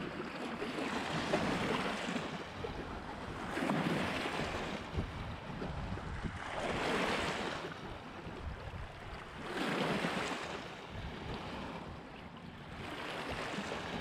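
Small lake waves washing in over a pebble and cobble beach, each wave a swell of rushing wash that fades back, about five in a row at roughly three-second intervals.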